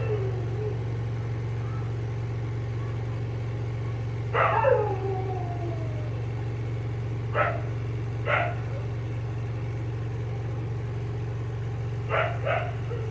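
Washing machine's spin dryer running a load with a steady low hum. Several short high cries cut in over it, one about four seconds in sliding down in pitch, two single ones later and a quick pair near the end.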